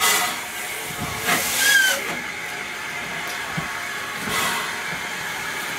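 A1X 'Terrier' class 0-6-0T steam tank locomotive No. W8 'Freshwater' moving slowly with steam escaping from its cylinders: three hissing chuffs of steam a couple of seconds apart, the second the loudest.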